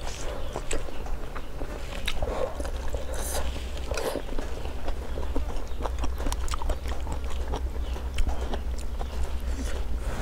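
Close-miked eating: chewing mouthfuls of hotpot noodles, beef and vegetables, with scattered light clicks of chopsticks against a plate.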